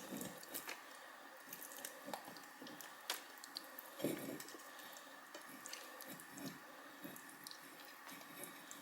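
Raw, oil-marinated hens being handled, giving faint wet squelches, with a sharp click about three seconds in and a soft thump about a second later.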